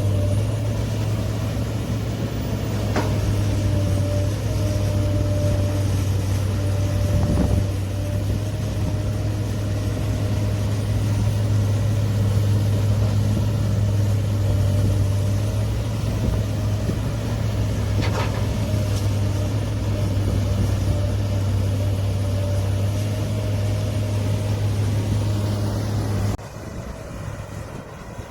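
Diesel engine of a heavy earthmoving machine running steadily with a deep, even hum and a few brief knocks; the sound drops suddenly near the end.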